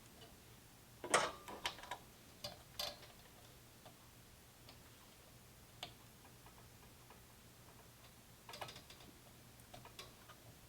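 Irregular small clicks and taps, in a cluster about a second in and another near eight and a half seconds, with a few lone ticks between, over a faint steady low hum.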